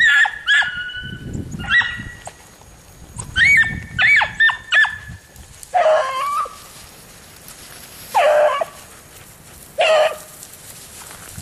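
Hounds giving tongue on a hare's trail: a quick run of short, high yips, then three longer, lower bays about two seconds apart.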